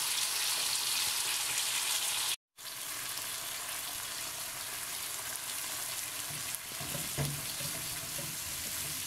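Sliced onion, carrot and red bell pepper sizzling in oil in a nonstick wok, being softened and stirred with a silicone spatula. The sizzle cuts out for an instant about two and a half seconds in, then carries on a little quieter.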